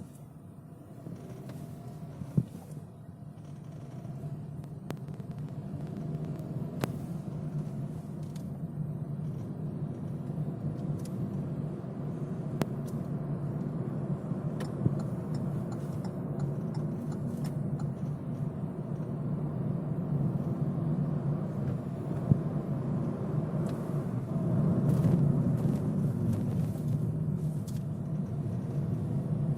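Inside a moving Kia Rio X-Line: steady road and engine rumble that grows gradually louder, with scattered short clicks and creaks from the interior trim.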